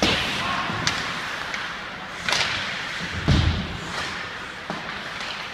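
Ice hockey play: a string of sharp stick-and-puck clacks, about five knocks, with a heavy, deep thud about three seconds in that is the loudest sound.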